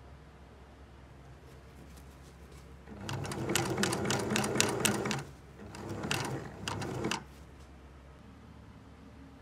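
Sewing machine stitching through thick wool fabric, its needle running in rapid, even strokes: two short runs, about two seconds and then about a second and a half, with a brief pause between.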